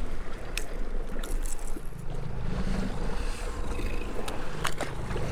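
Wind on the microphone and water slapping against a trolling fishing boat's hull, a steady low rumble, with a few short sharp clicks about half a second in, just after one second, and twice near the end.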